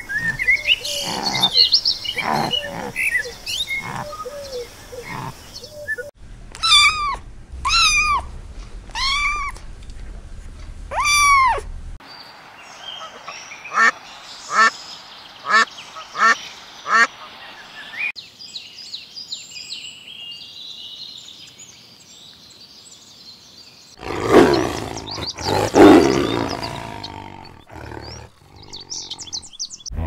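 A succession of different animal calls, each lasting several seconds. In the middle, Canada geese honking in a quick run of short calls; before them come four long rising-and-falling calls about a second apart, then thin high chirps and, near the end, a loud burst of calls from another animal.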